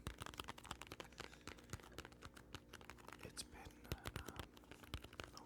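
Light, quick tapping close to the microphone: a dense run of small, irregular clicks, like fingertips typing.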